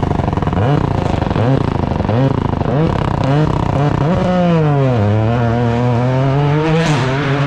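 Toyota GR Yaris AP4 rally car engine revving hard. Its pitch climbs and drops again about six times in quick succession, then falls away and holds a steadier note, with a short rise near the end.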